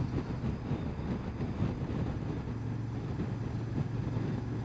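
Honda XL750 Transalp's parallel-twin engine running steadily at cruising speed, about 50 mph, with road and wind noise.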